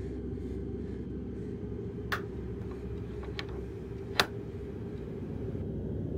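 Metal sliding bolt on a wooden door being worked by hand: three sharp metallic clicks, the last the loudest, over a steady low hum.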